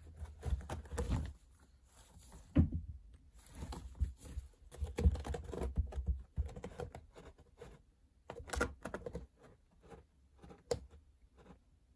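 A cat rolling and pawing on a woven cat scratcher: crackling, scratchy rustles and clicks of claws and fur on the woven fibres, coming in irregular spurts with quiet gaps.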